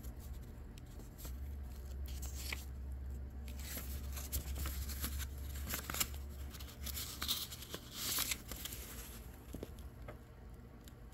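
Pages of an old book being turned by hand: paper rustling and flicking in several short bursts, loudest about six and eight seconds in, over a steady low hum.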